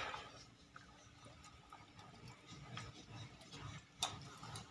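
Rottweiler eating dry kibble mixed with soft boiled liver and vegetables from a plastic bowl: faint, irregular crunches and clicks of kibble, with one sharper click about four seconds in.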